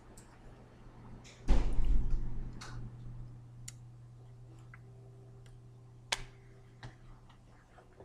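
Incidental sounds of a person signing: a dull thump about a second and a half in, where a hand or arm knocks the table or the microphone, then scattered light clicks and taps as the hands move and touch. A steady low electrical hum runs underneath.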